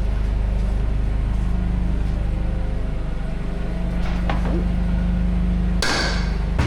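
Forklift engine running steadily, with a sharp knock about six seconds in.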